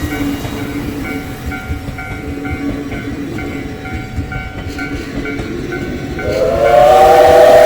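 Steam train running by with a steady low rumble while a level-crossing bell rings about twice a second. About six seconds in, the steam locomotive's whistle sounds, loud and held, several tones together.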